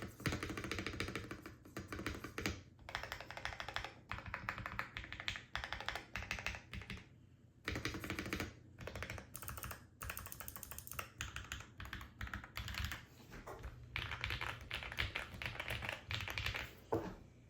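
Typing on a modded Feker IK75 mechanical keyboard with hand-lubed Akko Radiant Red linear switches: fast runs of keystrokes broken by short pauses, a few spaces between bursts.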